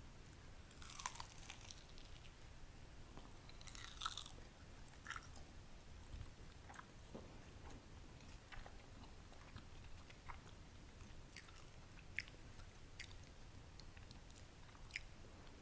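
Quiet chewing of a baked egg wrap: soft crunches and small wet mouth clicks, with louder crunches about a second in and again about four seconds in.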